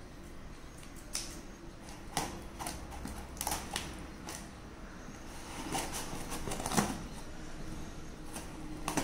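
Scissors cutting the packing tape on a small cardboard box, with the box being handled: irregular snips and clicks.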